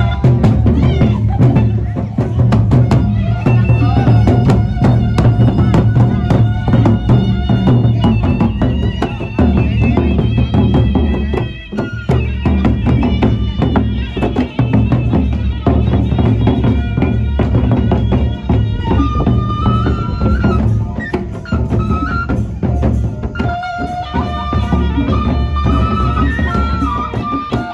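Sasak gendang beleq ensemble playing loudly: large double-headed barrel drums beaten in a dense, driving pattern, with a high stepping melody line over the drumming.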